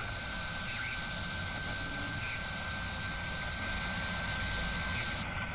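Sound effect of a CNC milling spindle cutting metal: a steady hiss with a thin, high, steady whine held over it. The brightest part of the hiss cuts off near the end.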